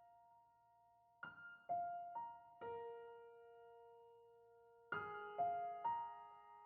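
Soft, slow piano background music: a few single notes ring out one after another, then after a pause three more notes are struck and left to ring.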